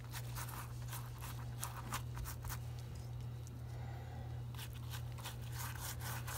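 Pastry brush stroking oil over folded flatbread pastries in a metal baking tray: quick, repeated soft rasping strokes, with a brief pause around the middle. A steady low hum runs underneath.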